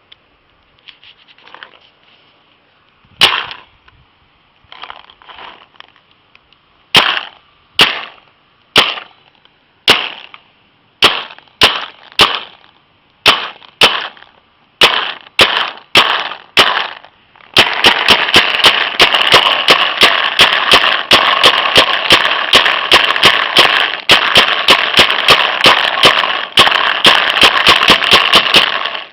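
VL200 paintball gun firing: single shots about a second apart, then rapid fire of several shots a second for the last third, stopping suddenly.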